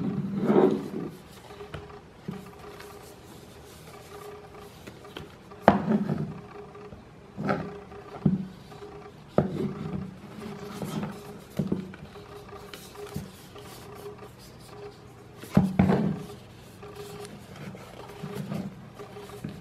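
A small cardboard box handled and turned over in the hands: fingers rub and slide over the card, with several louder knocks and bumps scattered through.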